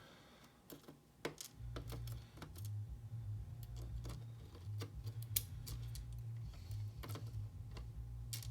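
Sparse small metallic clicks and taps of lock pins, lock parts and picking tools being handled, over a low hum that comes and goes from about a second and a half in.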